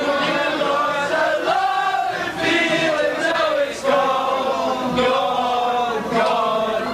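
A group of people singing together loudly, with long held notes, like a party sing-along chant.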